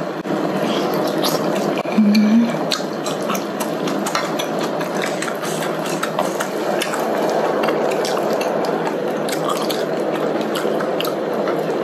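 Hotpot broth simmering and bubbling steadily in an electric hot pot, with close-miked wet chewing and light clicks of chopsticks.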